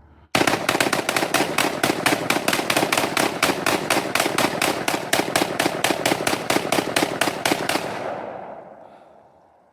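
A long, rapid string of sharp bangs, about seven a second and evenly spaced, that starts suddenly and keeps going for about seven and a half seconds before dying away.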